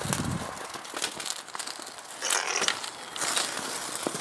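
A laptop burning after a high-current short from batteries in series set it on fire: sharp crackles and pops throughout, with two short bursts of hissing about two and three seconds in.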